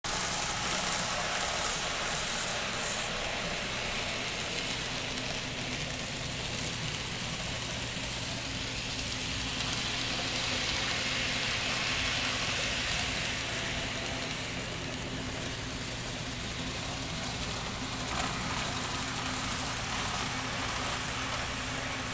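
Model train running on its track: a steady mechanical whirring and rattling with a low hum underneath, swelling a little around the middle.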